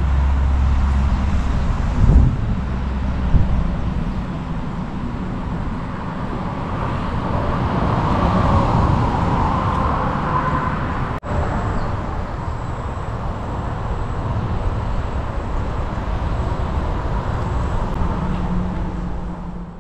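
Car driving along a road: steady engine and tyre rumble, with two thumps about two and three seconds in and a momentary drop-out around eleven seconds.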